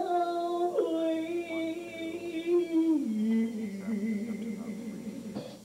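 A woman singing into a microphone, holding long notes that step down in pitch: a high note, then a lower one held for about two seconds, then a low note with a wide vibrato that stops near the end.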